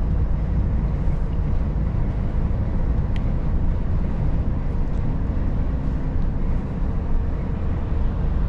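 Volvo FH 460 truck on the move: a steady low diesel drone with road noise, at an even level.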